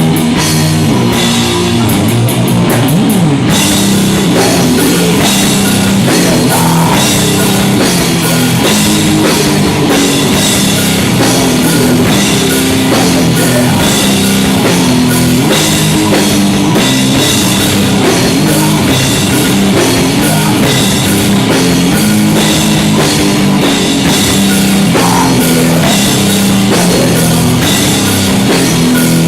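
Live rock band playing loud and steady, with electric guitar and drum kit, in an instrumental passage without singing.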